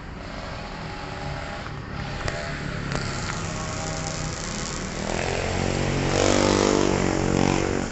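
A motor vehicle's engine passing close by, growing louder from about five seconds in and falling away just before the end.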